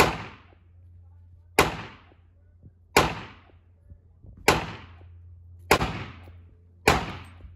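Gunshots fired singly at a slow, even pace: six sharp cracks about one and a half seconds apart, each trailing off in a short echo.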